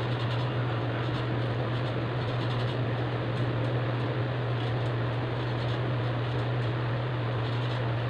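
Electric fan running with a steady hum and airy noise, under faint rustles and light knocks from a clothes iron moving over fabric on an ironing board.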